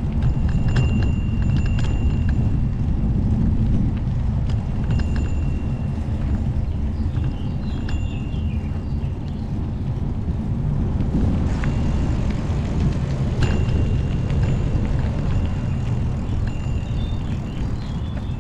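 Wind buffeting the microphone of a moving ride camera, a steady low rumble, with scattered knocks and a few brief high-pitched squeals or tones.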